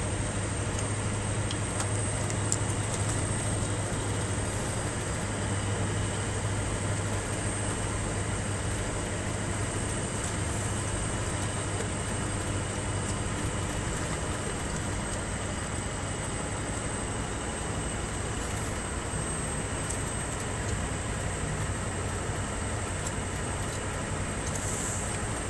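Scania R620's 16-litre V8 diesel engine running steadily under load on a climb, heard from inside the cab over a constant low hum and road noise.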